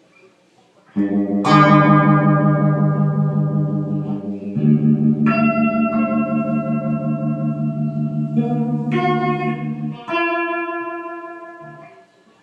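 Electric guitar played through a one-knob phaser pedal into a tube amp with reverb: a strummed chord about a second in, followed by several chord changes, each ringing out with the phaser's sweeping, wavering tone and fading away near the end.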